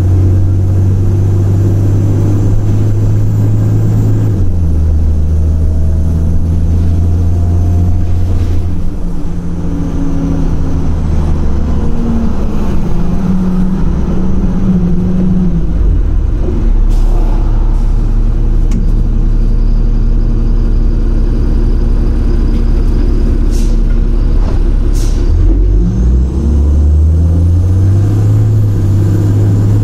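Cummins ISL diesel engine of a 2006 Orion VII city bus running, its note shifting several times: it drops about four seconds in, climbs between about ten and fifteen seconds, settles into a deep low drone, and climbs again near the end.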